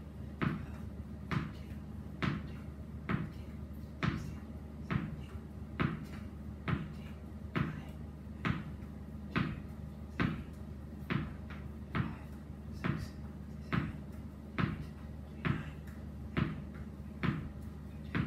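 A small ball thrown underarm against a wall and caught with alternating hands, making a sharp knock in a steady rhythm a little faster than once a second, about twenty in all. A steady low hum runs underneath.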